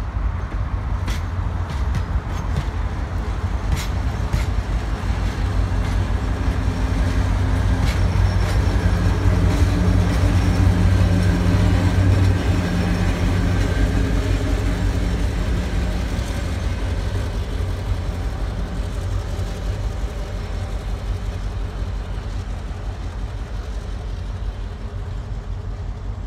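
Passing train: a few sharp clicks of wheels over rail joints early on, then the heavy diesel drone of an EMD GP7 locomotive's two-stroke engine growing louder as it goes by close, peaking a little before the middle and slowly fading as the train moves away.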